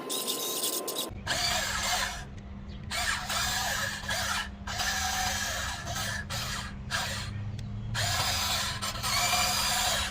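Small electric motors of a radio-controlled excavator whirring in runs that stop and start again every second or two, the pitch bending as the motors work, over a steady low hum. The whirring starts about a second in.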